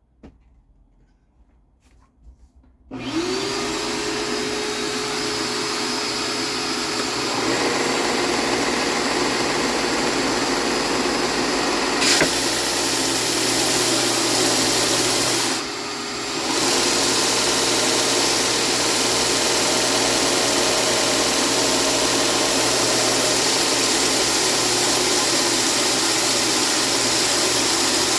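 A shop vacuum switches on about three seconds in, its motor winding up to a steady run, and a belt sander's motor joins about seven seconds in as a wood piece is sanded with dust collection running. A sharp click comes near the middle, and the noise dips briefly a few seconds later.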